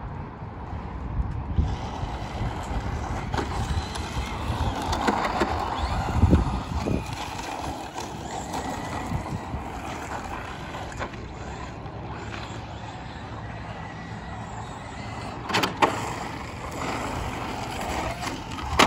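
An electric RC rally car driving on an asphalt street, mixed with the noise of a full-size car passing, with a few sharp knocks near the end.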